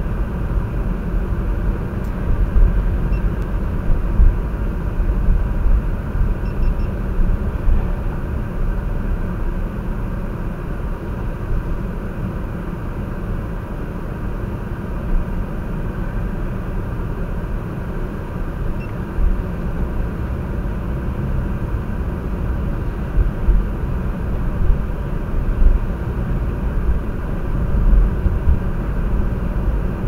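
Car driving, its road and engine noise heard from inside the cabin as a steady low rumble.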